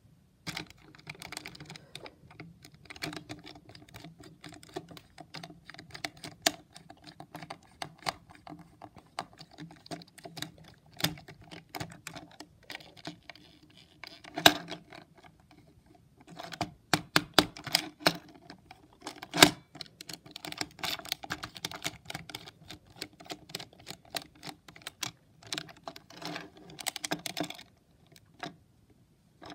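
Irregular clicking and tapping of a small plastic Hexbug BattleBots toy robot being handled, its hard plastic shell and wheels knocking on a tabletop, with a few sharper knocks.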